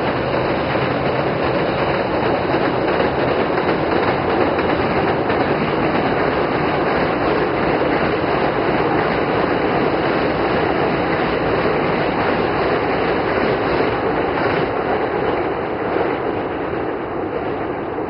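Hankyu electric train crossing a steel railway bridge, its wheels and the bridge giving a loud, steady rumble that eases a little near the end.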